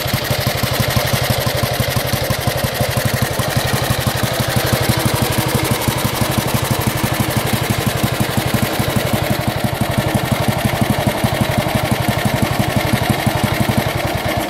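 1938 NSU 501 OSL's overhead-valve single-cylinder engine idling with a steady, even beat. The engine has been repaired and is running well.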